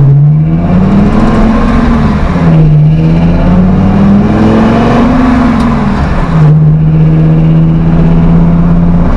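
Ford Triton 6.8-litre V10 in a 1970 Ford F100, through a 2.5-inch X-pipe exhaust, pulling hard through the gears. The revs climb and fall back at a shift about two and a half seconds in, climb again and fall at a second shift a little after six seconds, then hold steady.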